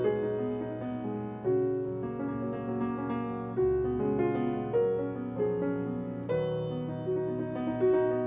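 Grand piano played solo in classical style: a continuous stream of notes, with a longer melody line held over quicker moving notes beneath.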